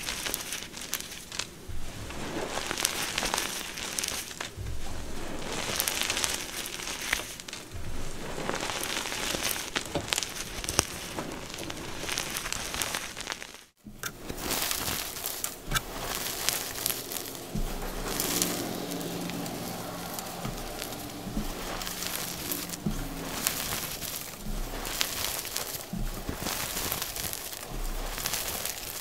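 Blocks of BSN gym chalk coated in pigment powder being crushed: a continuous run of dry crunching and crumbling with many sharp cracks, broken by a sudden brief gap about halfway through.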